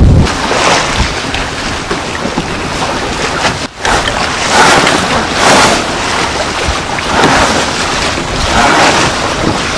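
Water rushing and splashing along the wooden hull of a gaff cutter under sail, rising and falling in repeated washes, with wind on the microphone. The sound briefly drops out a little after three seconds in.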